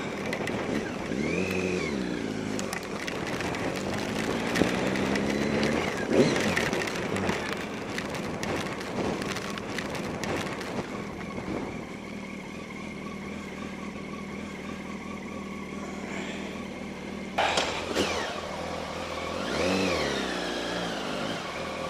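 Motorcycle engine at low speed, its revs rising and falling several times in the first few seconds. It then runs quieter and steadier at low revs, and the revs climb again near the end.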